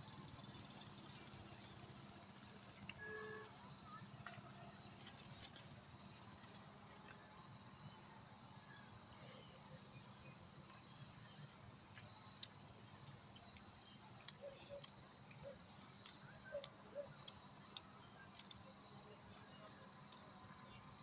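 Crickets chirping faintly and steadily: a continuous train of high, even-paced chirps, several a second.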